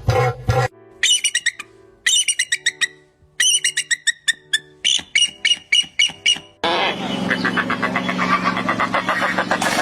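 Bird calls from different birds in turn. A low pulsing call cuts off within the first second. Four runs of rapid, high, falling chirps follow, then from about two-thirds through a harsh, fast, chattering squawk.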